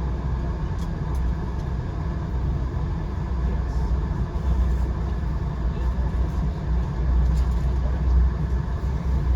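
Steady low rumble of a passenger train car riding along the track, heard from inside the coach, with a few faint clicks.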